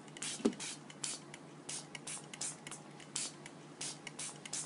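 Hand trigger spray bottle misting water onto paper in quick short hisses, about three a second. A single light knock about half a second in.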